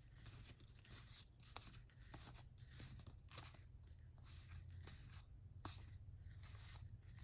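Faint rustling and light ticks of stiff game cards being slid and fanned between two hands, over a low steady hum.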